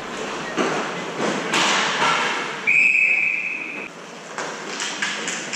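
Referee's whistle blown once, a steady high blast of about a second in the middle, over knocks and clatter of play on the rink floor.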